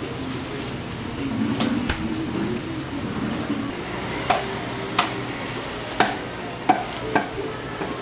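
Cleaver chopping on a cutting board: five sharp strikes about a second apart, starting about halfway in, over steady background noise.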